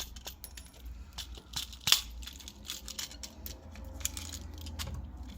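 The little mounting wings on a new GFCI outlet's strap being worked and snapped off: scattered small clicks and scrapes, with one sharp snap about two seconds in.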